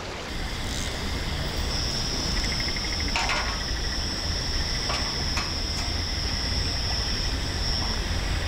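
A steady high-pitched insect drone starts about two seconds in and stops shortly before the end, with a few faint clicks and a low rumble underneath.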